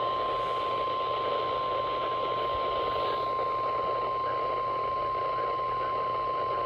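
NOAA Weather Radio warning alarm tone (1050 Hz) sent during a weekly test, a single steady tone over radio hiss.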